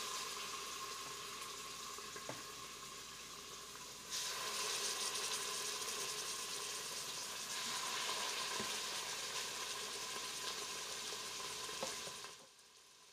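Chunks of beef roast sizzling as they sear in hot oil in an Instant Pot's inner pot on the high sauté setting. The sizzle gets louder about four seconds in as another piece is laid in, with a few faint clicks of the tongs, and it stops abruptly about a second before the end.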